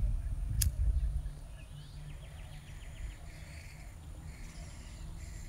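Quiet outdoor ambience: a low rumble on the microphone for the first second, a single sharp click about half a second in, then a faint, rapid trill around two seconds in.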